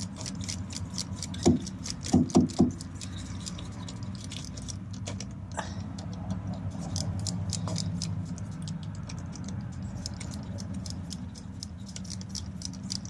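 Socket ratchet clicking in quick repeated strokes as it spins out a loosened starter mounting bolt that now turns freely, with a few dull knocks around two seconds in.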